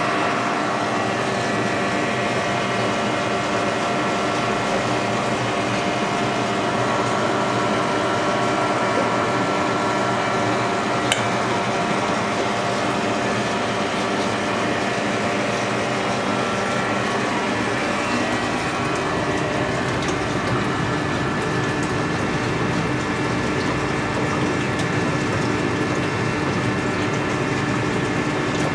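Aquarium pumps and filtration running steadily: a continuous hum with several steady tones over a wash of water noise.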